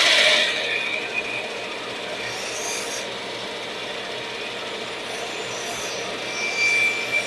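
Steady rasping of a woodworking tool on wood, loudest in the first second and then settling to an even level.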